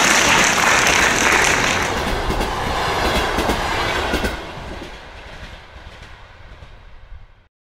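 Sound of a train running on rails, loud for about four seconds, then fading away and cutting off suddenly just before the end.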